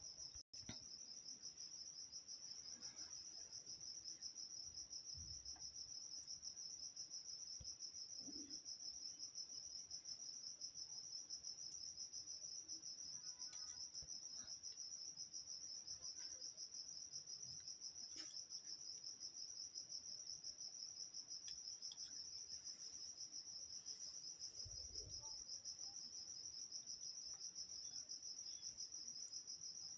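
A cricket trilling without pause, a steady high-pitched pulsing note, with a few faint light clicks beneath it.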